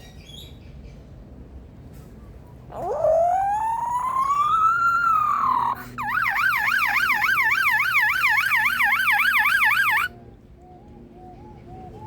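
Superb lyrebird mimicking a siren: a wail that climbs steadily for about three seconds and tails off, then a fast yelping warble going up and down about three times a second for four seconds, which stops suddenly. A few faint soft chirps follow near the end.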